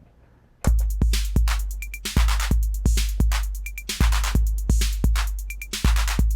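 TR-808-clone drum machine starting a looped beat about half a second in: deep booming bass drum hits, ticking hi-hats with the open hi-hat brought up, and a short high blip repeating about every two seconds.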